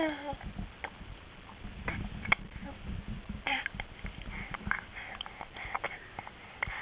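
Noisy close-up eating: wet chewing, lip smacks and short sniffs in an irregular patter, with a short grunt-like vocal sound right at the start.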